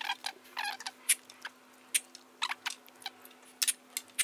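Sipping and slurping of brewed coffee from small tasting cups: about a dozen short, sharp clicks and small wet slurps spaced irregularly, over a faint steady hum.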